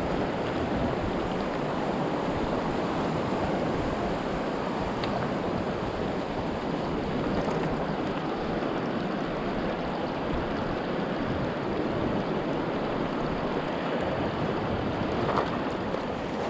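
Steady rushing of a mountain stream, an even wash of water noise with no let-up.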